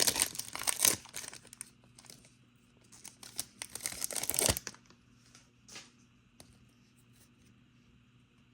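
Trading-card pack wrapper being torn open and crinkled, in two bursts: one in the first second and a longer one from about three to four and a half seconds in. After that come only a few faint ticks.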